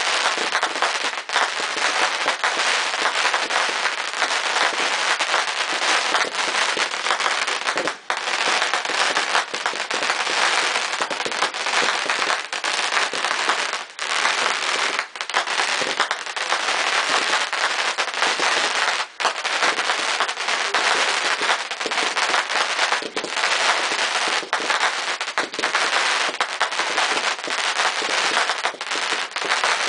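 Aerial fireworks bursting in rapid succession: a dense, unbroken crackle of many small reports, with sharper pops scattered through it.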